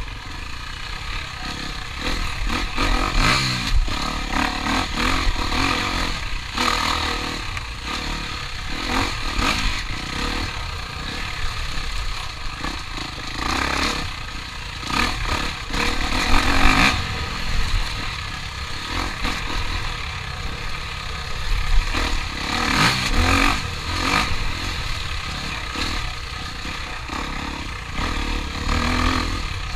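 Racing engines revving up and down as vehicles pass, the pitch rising and falling repeatedly, loudest about halfway through.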